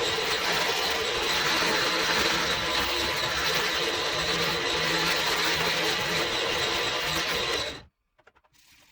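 A power tool running steadily, cutting off abruptly near the end.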